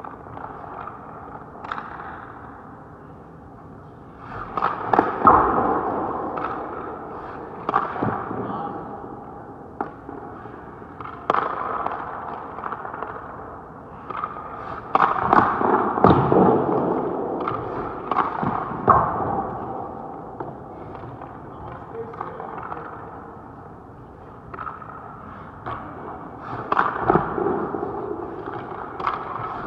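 Ice-hockey goalie skate blades scraping and carving the ice, with pads and gear knocking down on it in clusters every few seconds during crease movement, each cluster a burst of sharp crackling scrapes and knocks.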